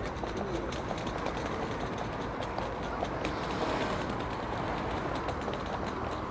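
Busy city street ambience: a steady hum of traffic and people, with many scattered clicks and taps.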